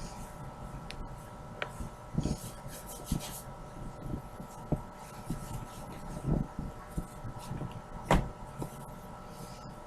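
Hands stretching and working calzone dough on a floured surface: soft rubbing and handling noises with scattered low thumps, and one sharper knock about eight seconds in, over a faint steady hum.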